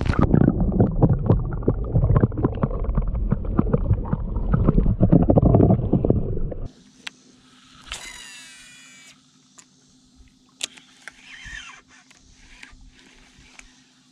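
Water sloshing and bubbling heard through a submerged camera as a largemouth bass is let go, a dense muffled rumble with many small clicks. After a sudden cut, a cast with a Shimano Antares DC baitcasting reel: the spool and its electronic brake whine for about a second, with a faint low hum underneath.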